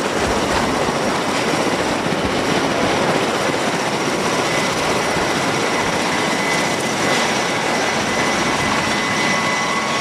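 Nearby military rotorcraft running, a steady dense roar of engines and rotor downwash with wind buffeting the microphone, and a faint steady high whine over it in the second half.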